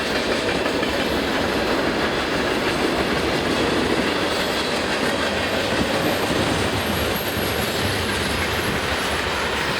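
Freight cars rolling past at a steady pace, a continuous rumble and rattle of steel wheels on the rails, with a faint high wheel squeal now and then.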